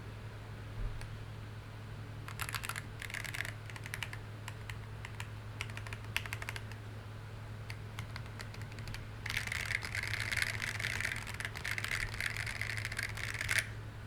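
Custom 50-percent-layout mechanical keyboard (H50) being typed on: a couple of short bursts of keystrokes a few seconds in, scattered single key clicks, then fast continuous typing from about nine seconds in that stops abruptly near the end. A steady low hum runs underneath.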